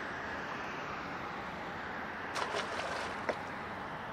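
A largemouth bass released back into the lake, splashing briefly with a few quick slaps a little past halfway and one more small slap soon after, over a steady rushing background of wind and water.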